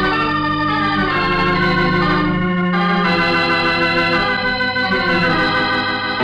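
Organ music playing slow, held chords that shift every second or so, a musical bridge in a radio broadcast.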